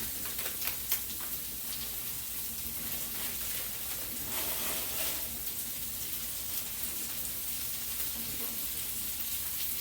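Chopped vegetables and frozen corn sizzling in oil in a hot skillet, a steady hiss, with a few sharp clicks in the first second as the corn goes in.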